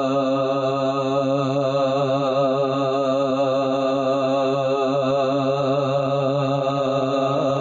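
A man's unaccompanied singing voice, amplified through a microphone, holds one long note with a steady wavering vibrato in a naat's darood refrain.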